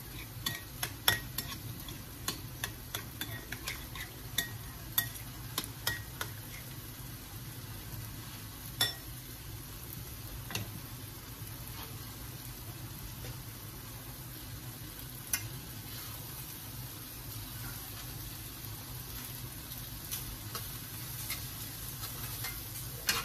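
A metal spoon clinking against a glass mixing bowl, a quick run of clicks in the first six seconds and a few single knocks later, over the steady sizzle of pans on a gas stove. Near the end a spoon scrapes and knocks in a pot as it is stirred.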